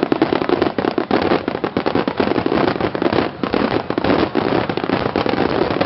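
Fireworks bursting in rapid, overlapping succession: many sharp bangs and pops a second with no break between them.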